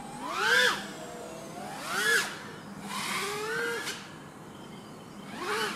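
Motors of a 3-inch FPV quadcopter (Eachine LAL3) revving up and down in four throttle bursts, each a rising then falling whine; the third lasts longest.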